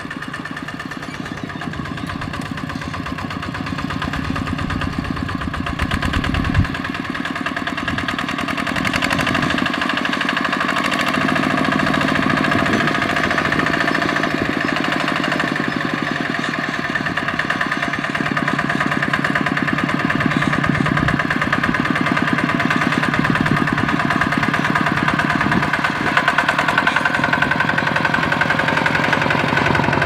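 Single-cylinder diesel engine of a Kubota ZT155 two-wheel walking tractor, chugging steadily under load as it hauls a trailer of rice sacks, growing louder over the first ten seconds or so as it comes closer.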